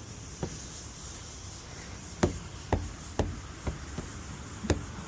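A series of sharp, separate knocks, about seven of them, coming roughly half a second apart through the middle and last part of the stretch.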